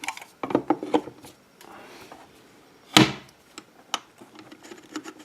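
Clicks and knocks from a watch's presentation case being handled and opened, with one loud knock about 3 seconds in.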